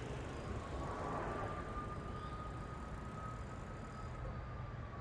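Wind rumbling on the microphone during a fat bike ride, with a faint steady whine that rises slightly and then fades near the end.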